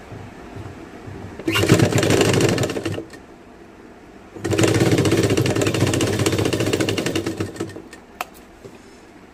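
Sewing machine stitching in two runs, one of about a second and a half and a longer one of about three seconds, with the rapid chatter of the needle. A few light clicks follow near the end.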